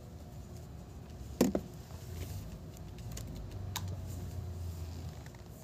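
Handling of a plastic corded hair straightener: one sharp click about a second and a half in, then a few lighter clicks and taps, over a faint low hum.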